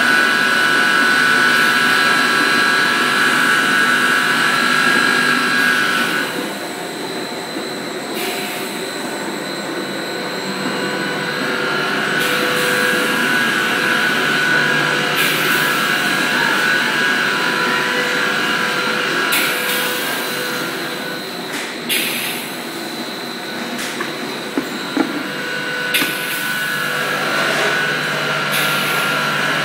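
Automatic bucket filling line running: a steady machine hum with a high whine, louder for the first six seconds, broken by repeated short hissing bursts and a few sharp clicks late on.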